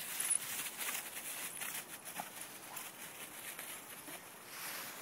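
Dry fallen leaves rustling and crunching in quick, irregular patter under the paws of three dogs play-fighting and running.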